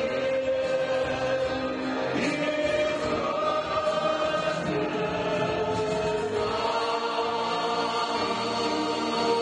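Live church worship band with piano, keyboard and guitar accompanying a group of singers in an Afrikaans praise song, played and sung continuously.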